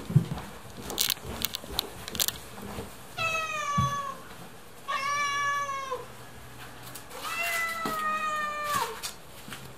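Orange tabby cat meowing three times, drawn-out meows that drop in pitch at the end, the last one the longest. A few sharp knocks and clicks come before them in the first two seconds.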